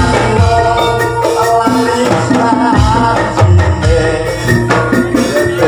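Javanese gamelan ensemble playing, with ringing pitched tones from the keyed instruments over a regular beat of drums.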